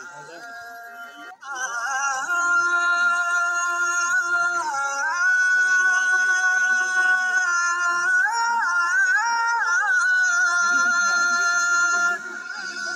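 Background music: a solo voice singing a slow melody of long, held notes with wavering ornaments and no beat. It comes in louder about a second and a half in.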